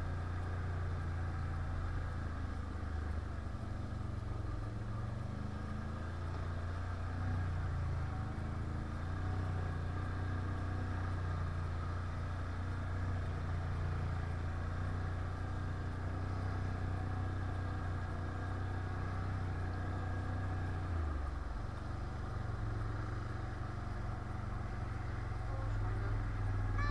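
Can-Am 1000 quad's V-twin engine running at a steady low pace on an offroad ride. About 21 seconds in, the engine note changes and then holds steady again.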